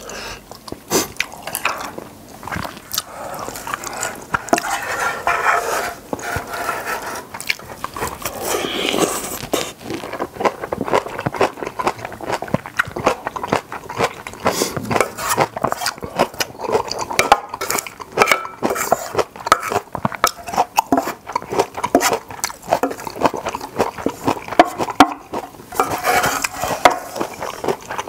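Close-miked wet chewing and slurping of spicy seafood noodle stew, a constant run of irregular mouth clicks and smacks, with occasional clinks of a wooden spoon and chopsticks against the metal pot.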